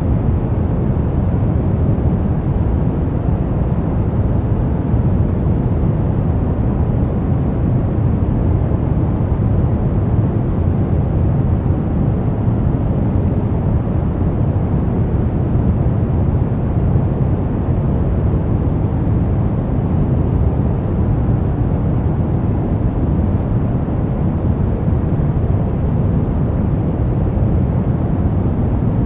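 Brown noise: a steady, deep rushing hiss, strongest in the bass and fading toward the treble, with no changes or events.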